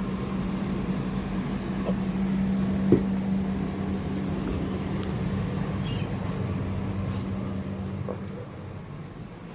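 A steady low mechanical hum, like a motor or engine running, which drops away about eight seconds in, with a single knock about three seconds in.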